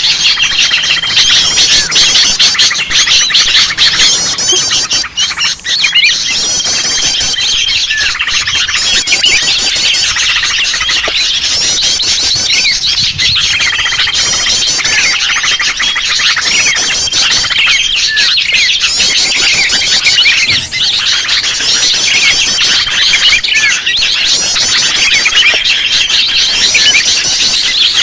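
A dense, noisy chorus of many sooty-headed bulbuls chattering and calling over one another, with a short level whistled note recurring several times. This is a bulbul lure recording, played to draw wild bulbuls in.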